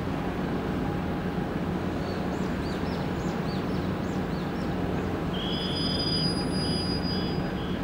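Steady low rumble and hum of a patrol vessel's machinery while its anchor is being heaved in. Small high chirps of birds come over it midway. From about five seconds in, a high note is held for a moment and then repeats as short peeps about twice a second.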